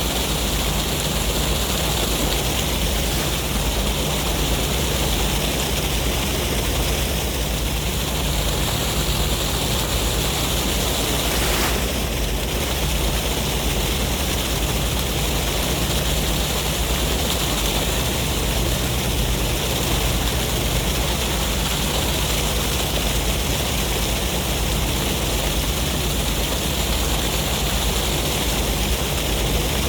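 Sea waves and sea breeze: an even, steady rushing noise with a low rumble underneath, with no single breaker standing out.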